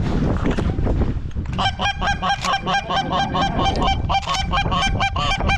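Geese honking in rapid, overlapping calls, starting about a second and a half in, over a steady low rumble.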